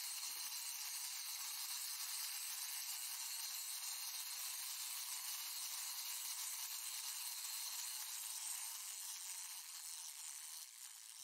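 A steady high hiss with no low end, fading out over the last second or two.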